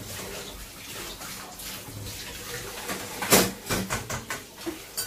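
Cooking at a stovetop pot of broth: a steady watery hiss, then a quick run of knocks and rustles about three and a half seconds in, with one more click near the end.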